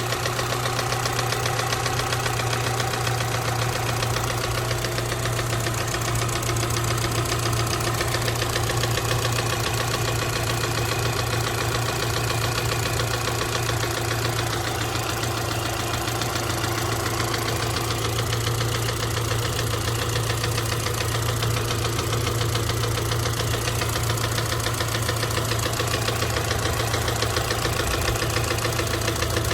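Subaru EJ253 2.5-litre flat-four engine idling steadily, with a fast, regular knocking running through it that the owner suspects may be rod knock.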